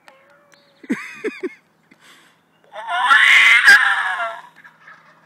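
Primos squalling hen turkey call blown: a few short yelps about a second in, then a long, loud, raspy squall lasting nearly two seconds, imitating an excited hen turkey.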